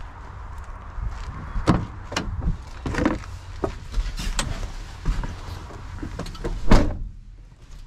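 A VW T5 Transporter van's driver's door being opened and the driver climbing into the cab: a run of clunks and knocks, ending in a loud slam of the door being pulled shut a little before the end, after which the sound is muffled.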